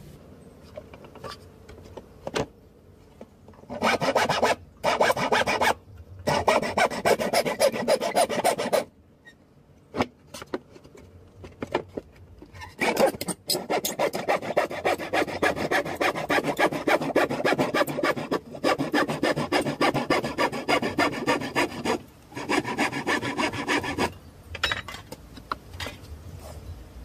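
Hand saw cutting through a painted wooden board in quick back-and-forth strokes. The sawing comes in several spells with short pauses between them, the longest one in the second half, and stops a few seconds before the end.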